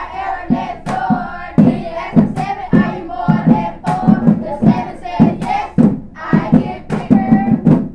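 A group of children chanting in rhythm, with hand claps, pulsing about twice a second.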